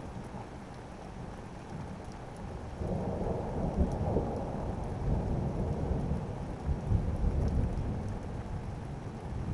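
Thunder rumbling over steady rain: the rumble swells in about three seconds in, holds with uneven peaks for about five seconds, then eases off.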